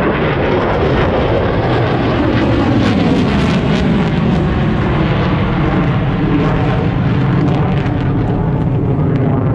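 Jet aircraft flying past low at an air show: loud engine noise comes on suddenly, with a whine that falls in pitch over the first few seconds as it passes, some crackling, then a steady rumble.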